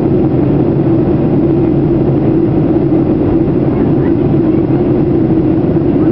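Jet airliner cabin noise in flight: a loud, steady rush of air and engine drone with an even low hum.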